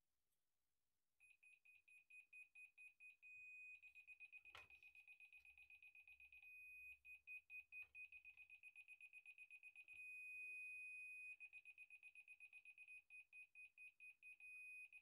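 Electronic beeper sounding one high-pitched note. It starts about a second in as quick beeps, speeds up, pauses, and twice holds a solid unbroken tone before breaking back into beeps. A light knock comes about four and a half seconds in.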